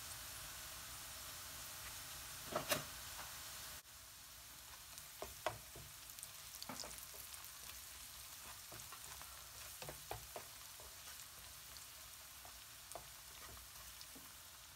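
Sliced onions and ground spices sizzling softly in oil in a non-stick wok, with scattered scrapes and taps of a spatula as they are stirred.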